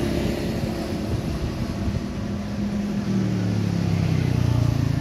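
Motorcycle engine running, growing louder over the last two seconds as it approaches.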